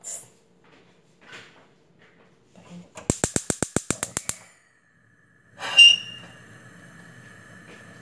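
Gas hob's electric igniter clicking about ten times in quick succession, roughly eight clicks a second, as the burner is lit. A loud sharp knock follows about six seconds in, then a steady hiss as the lit burner runs.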